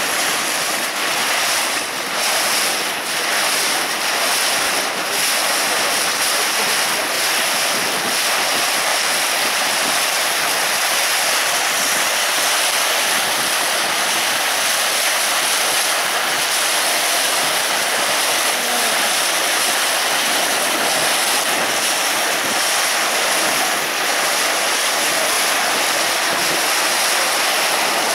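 Water rushing and splashing along the hull of a moving river ferry, a steady loud wash with some wind on the microphone.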